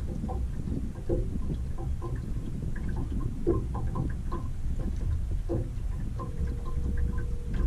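Wind rumbling on the microphone aboard an anchored fishing boat, with scattered small taps and knocks as a rod is handled in its holder on the gunwale. A faint steady hum comes in near the end.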